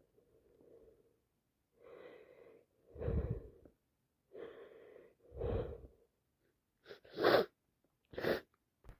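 A person with a heavy head cold sneezing repeatedly. Twice a wheezy catching breath builds into a louder burst, and two short sharp sneezing bursts near the end are the loudest.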